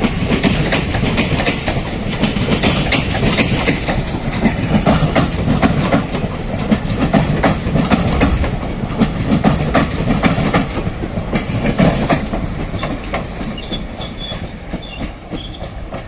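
ICF passenger coaches' wheels clattering over rail joints in a quick, irregular run of clacks over a steady rumble. The sound eases off over the last few seconds, with faint high wheel squeals near the end as the train arrives.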